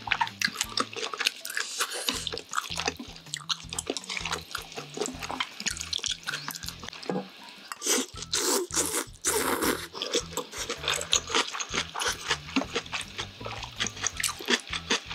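Close-miked eating sounds of cold buckwheat noodles (naengmyeon) in spicy broth: wet chewing and lip smacks, with a loud stretch of noodle slurping about eight to ten seconds in.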